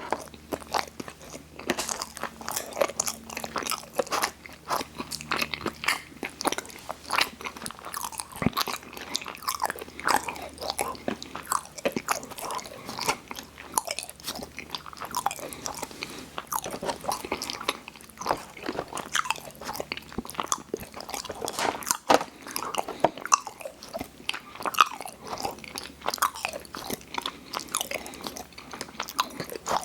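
Close-miked eating of sweets: continual wet biting, chewing and crunching with many sharp mouth clicks.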